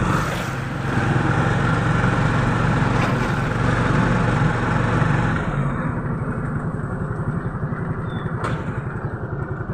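Motorcycle tricycle's engine running at a steady pace while riding, with wind and road rush over it; the rush drops away a little past halfway, leaving the engine's low pulsing more to the fore.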